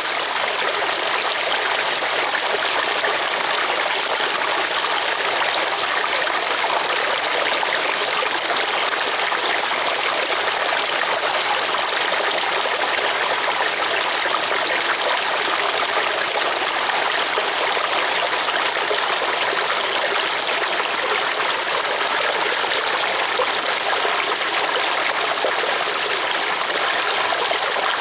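River water flowing over stones, a steady rushing and babbling that stays even throughout.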